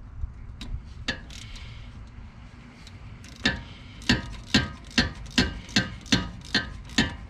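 Hand ratchet with an Allen socket clicking on a brake caliper guide bolt. Sharp, even clicks at about two and a half a second start about three and a half seconds in, after a few faint clicks.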